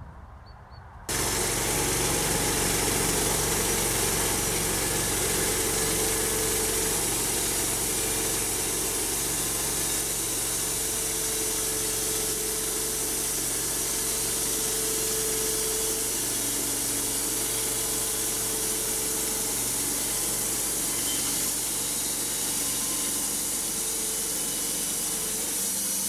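Homemade band sawmill running steadily while its blade cuts lengthwise through a squared spruce log. The sound starts abruptly about a second in and stops suddenly at the end.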